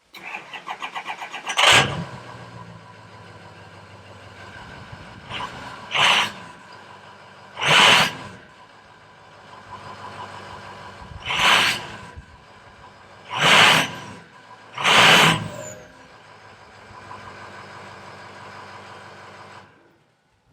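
Ford 6.0 Power Stroke V8 turbodiesel on its stock exhaust, cranked over for about two seconds, catching and settling into a steady idle. It is then revved five times in short, loud blips before it stops.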